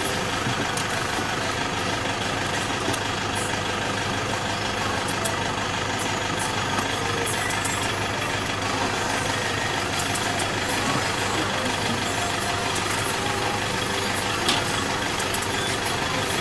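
A motor running steadily at idle, an even drone with several steady tones in it, with a few light clicks over it and one sharper knock near the end.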